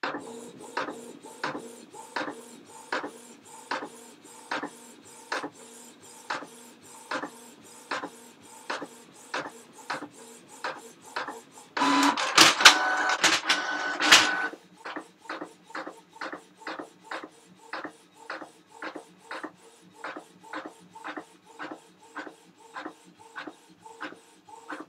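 Printer running: regular mechanical clicks about twice a second, with a louder, busier stretch of about two seconds halfway through that carries steady tones, after which the regular clicking goes on.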